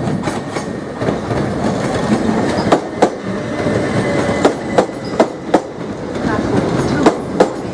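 Electric multiple-unit passenger train running slowly past, a steady rumble with its wheels clicking over a rail joint in pairs, one pair for each bogie. There are four pairs of clicks, starting about two and a half seconds in.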